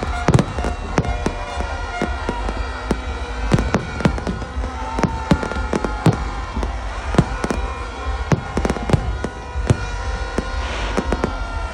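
Aerial fireworks shells bursting in a dense, irregular barrage of bangs, several a second, the loudest just after the start.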